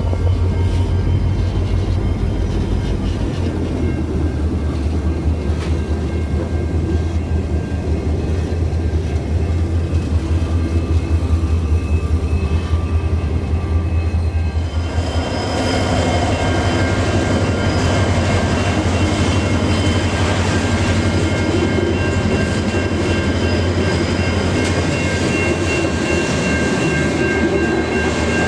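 Diesel-electric locomotives of a loaded grain train passing close by with a deep engine hum, then the hopper wagons rolling along the rails. About halfway through, several steady high-pitched metallic squeals ring out over the rumble of the slow-moving wagons.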